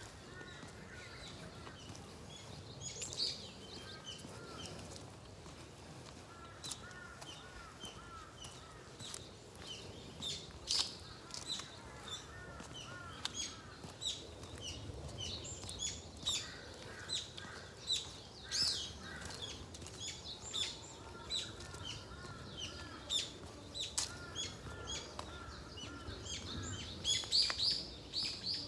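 Several birds singing and chirping: a steady scatter of short, high chirps, with a phrase of lower, arched whistled notes repeated every few seconds.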